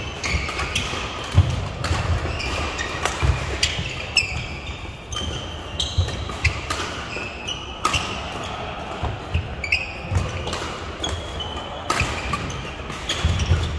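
Badminton play: sharp racket strikes on the shuttlecock, short squeaks of shoes on the court floor, and low thudding footfalls, scattered irregularly.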